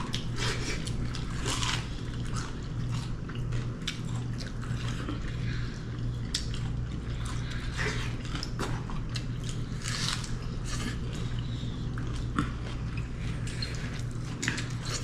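People chewing and biting into food close to the microphone, with frequent irregular crunches and smacks, over a steady low hum.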